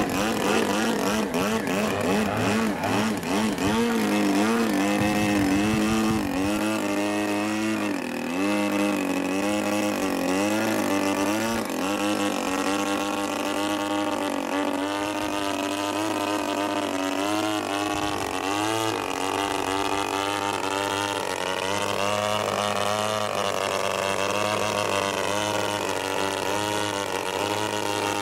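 The 50cc DA-50 two-stroke gasoline engine of a radio-controlled Extra 300L aerobatic plane runs in flight, its pitch rising and falling as the plane manoeuvres. Through the first half the pitch wobbles up and down about once a second.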